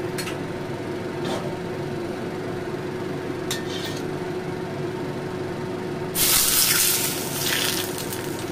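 Smoking-hot oil ladled over a steamed dish sizzles sharply for about a second and a half, scalding the shredded ginger, spring onion and chilli on top, with a shorter second sizzle just after. Before it there is only a steady hum and a few light clicks.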